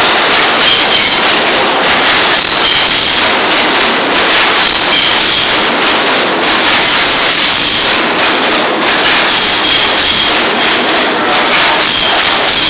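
R160B subway train rolling along the platform, its wheels clattering over the rail joints with high-pitched metal squeals that come and go.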